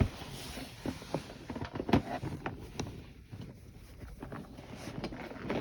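Handling noise: irregular light clicks, knocks and rustling as fidget toys are picked up and moved about, with a sharper knock about two seconds in.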